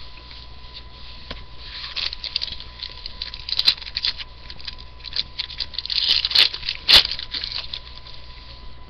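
Trading-card packs and cards being handled: a foil pack wrapper torn open, with irregular crinkling, rustling and sharp clicks, loudest about seven seconds in.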